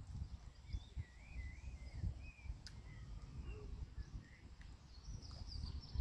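Birds singing outdoors: a warbling song of wavering, rising and falling notes through the middle, with a few higher chirps near the end, over a low, uneven rumble.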